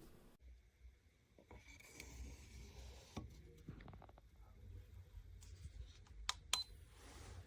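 Faint handling noises and a few sharp clicks, as of a small plastic mini humidifier being handled and its button pressed, with one short high beep near the end.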